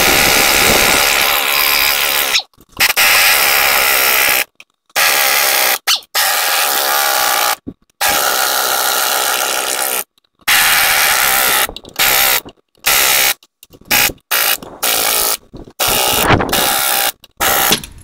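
Impact wrench run in a string of short bursts, about a dozen, each a second or two long with brief pauses between, spinning and tightening the lug nuts on a manure-spreader wheel.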